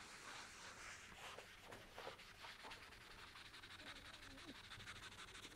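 Faint scrubbing of a dry guide coat applicator pad rubbed back and forth over body filler on a car panel.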